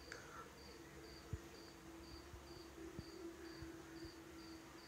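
Faint, regular chirping of a cricket, a short high-pitched pulse about twice a second, over a faint steady hum.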